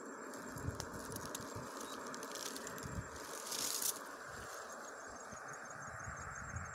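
Rustling and handling noise as a hand works among vine leaves, with one louder rustle a little past the middle. From about two-thirds of the way through, an insect chirps in a fast, even, high-pitched pulse.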